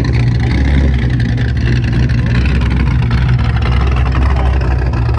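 A modified Pontiac G8 sedan's engine and exhaust running steadily at low revs: a loud, deep, even rumble with no revving.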